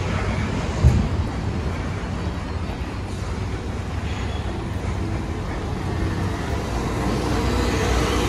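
Low, steady rumble of street traffic, with a single bump about a second in.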